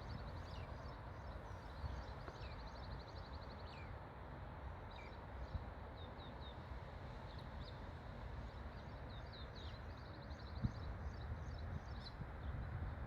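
Several small birds chirping and calling, with short falling whistles and quick rattling trills, over a steady low rumble of outdoor background noise.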